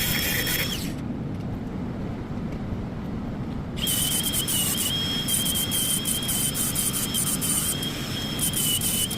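Grinder cutting metal, a high steady whine over a hiss with brief stutters as the wheel bites. It stops about a second in and starts again about four seconds in for a longer cut.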